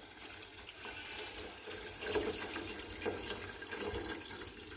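Water being poured into a cooking pot over a layer of rice, a steady splashing that grows a little louder about two seconds in.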